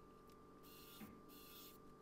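Near silence, with faint rustling and a soft knock about a second in as tools are handled.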